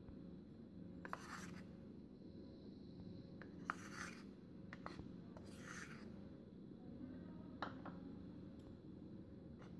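Metal spoon scooping and tipping corn flour into a ceramic bowl: three soft scrapes of spoon and powder, about 1, 4 and 6 seconds in, and a few light clicks of the spoon against the bowl. All of it is faint.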